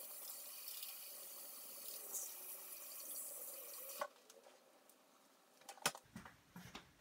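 Kitchen faucet running while hands are washed under it: a steady hiss of water that stops with a click about four seconds in, followed by a few faint knocks.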